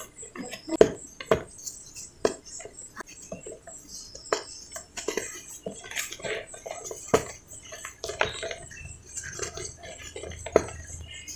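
Hands crumbling and crushing lumps of dry cement in a metal basin: irregular crunching and crackling of the breaking lumps, with a few sharper knocks and clinks where hands or chunks hit the basin.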